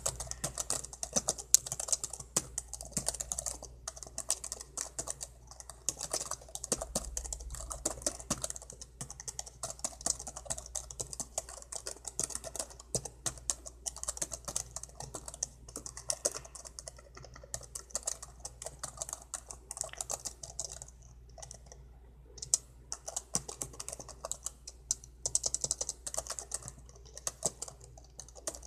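Fast, continuous typing on a laptop keyboard, keys clicking rapidly with a brief pause about two-thirds of the way through, over a faint low hum.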